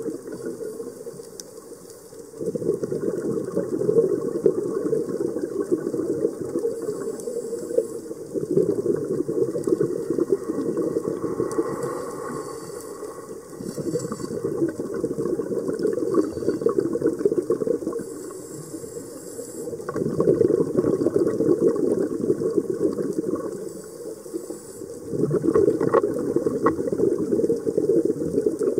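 A scuba diver breathing underwater: exhaled bubbles from the regulator gurgle in bursts of a few seconds, about every five or six seconds, with quieter gaps for each in-breath.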